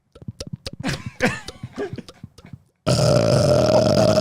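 A man gulping down air in a series of clicky swallows, then, nearly three seconds in, letting out a long, loud burp at a steady pitch that is still going at the end. The burp comes from deliberately swallowed air.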